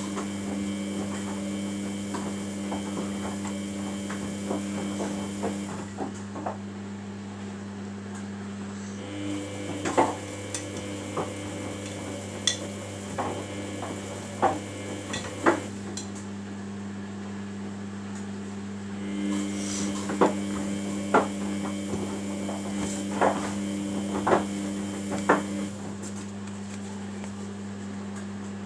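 Samsung WF80F5E0W4W front-loading washing machine washing a wet load. The drum motor hums in spells of several seconds with short pauses between. The tumbling load knocks against the drum, with a series of sharp clunks now and then.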